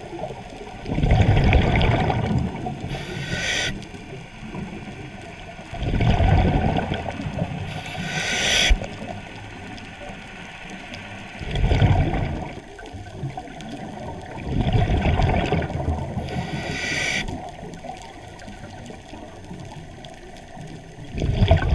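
Scuba regulator breathing underwater: a bubbling rush of air on each exhale, about five times, several of them followed by a short, sharp hiss as the next breath is drawn through the regulator.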